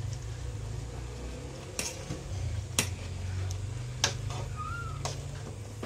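A stirring utensil knocking against the side of a metal cooking pot while noodles in broth are stirred: four sharp clicks about a second apart, over a steady low hum.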